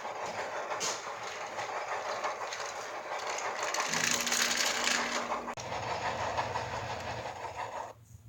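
Sound effect of a continuous mechanical clatter, loudest about halfway through, that cuts off suddenly near the end.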